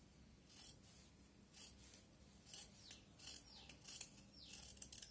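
Large tailor's scissors cutting through blouse fabric: a run of faint, irregular snips, coming closer together in the second half, some with a brief sliding rasp of the blades.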